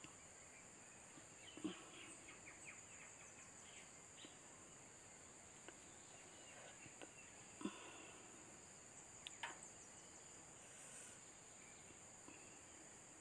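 Near silence: faint ambience with a steady high-pitched insect drone. Three soft knocks come about 2, 8 and 9.5 seconds in, and a few faint short chirps are scattered among them.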